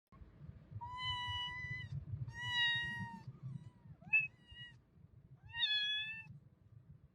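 A domestic cat meowing four times: two long, level meows, a short rising one, then a final meow that rises and falls slightly.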